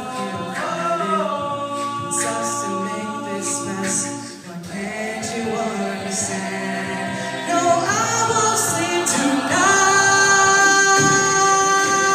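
Mixed a cappella choir singing without instruments, holding sustained chords. The voices slide up into new chords a few times and swell to the loudest held chord near the end.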